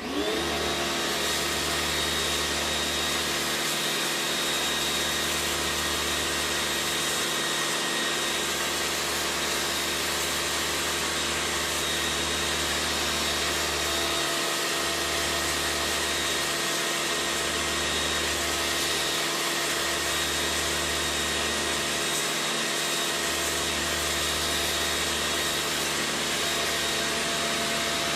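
Bossman BPC-4830 2000-watt electric pressure washer running steadily, its motor and pump giving a constant whine. A low hum under it drops out briefly about six times.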